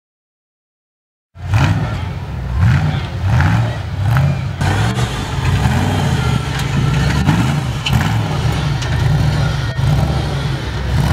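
An off-road vehicle's engine running and revving up and down repeatedly, with scattered knocks and clatters; it cuts in suddenly after a second or so of silence.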